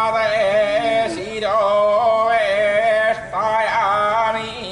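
A man chanting a Vedic mantra into a microphone, in three long held phrases with slight rises and falls in pitch and short breaths between them.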